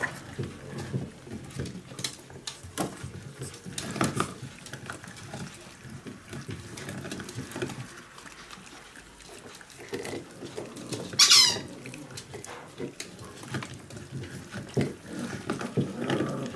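Miniature pinscher puppies eating whole rats: scattered short cracks of chewing, and about eleven seconds in one loud, high squeak from a puppy that falls sharply in pitch.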